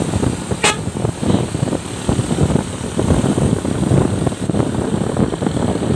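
Low, uneven vehicle rumble with gusts of wind buffeting the microphone, and one short sharp click about half a second in.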